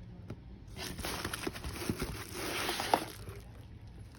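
Packaging rustling as a tool set is unboxed and handled, with several light knocks. The rustling starts about a second in, and the sharpest knock comes near three seconds.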